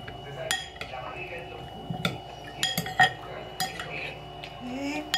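A metal spoon stirring shrimp ceviche in a bowl, with irregular clinks of the spoon against the bowl's side.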